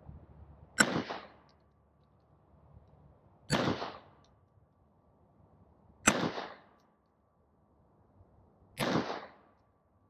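Pistol fired four times in slow, evenly spaced shots about two and a half seconds apart, each followed by a short echo. This is deliberate aimed fire from a sandbag rest, as in shooting a group to zero the sights.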